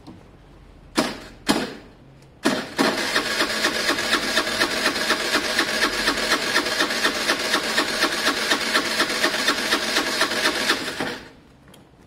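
A Piaggio Fly 125 scooter's electric starter, boosted from a separate battery through jump leads, cranks its 125 cc engine. Two short blips come first, then about eight seconds of steady cranking at an even beat of about five a second. The engine does not fire before the starter stops.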